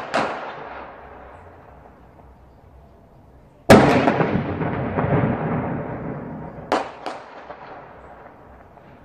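Firework bangs: a quick double crack, then a much louder bang about four seconds in with a long tail that fades over several seconds, then another quick double crack near the end.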